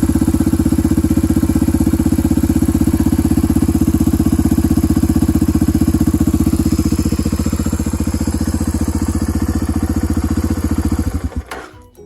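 Suzuki DR250S single-cylinder four-stroke motorcycle engine idling with an even exhaust beat through a SuperTrap muffler: the packing has been removed and a Super Quiet baffle with six discs is fitted. Near the end the beats slow and the engine stops.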